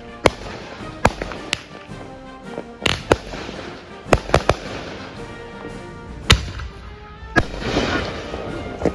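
Consumer fireworks going off: about ten sharp bangs at irregular intervals, with a burst of crackling near the end, over background music.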